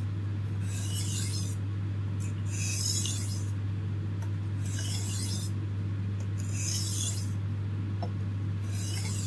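Knife blade scraped along an oiled sharpening stone in five slow strokes, about one every two seconds, each a short hissing rasp. These are burr-removal strokes on a fine stone.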